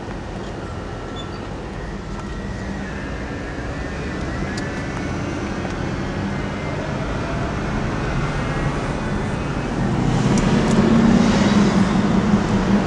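Car engine and road noise heard from inside the cabin while driving, growing steadily louder and stepping up about ten seconds in.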